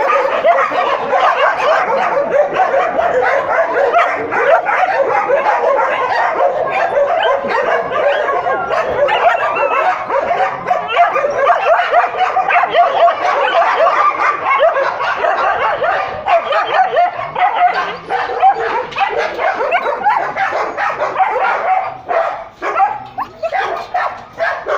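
Many dogs in shelter kennels barking and yelping at once in a continuous chorus, with whimpers mixed in. Near the end it thins to separate, scattered barks.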